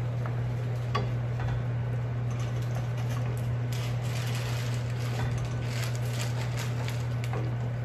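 Pot of pasta at a rolling boil and a pan of cream sauce simmering on a gas stove, a steady bubbling over a constant low hum, with a few light clicks.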